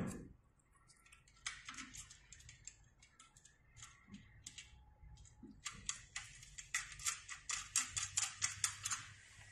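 A dull knock at the very start, then small metal screws and a washer clicking and ticking as fingers thread them in by hand. The clicks come in scattered clusters, then a faster run of about four or five a second from about six seconds in.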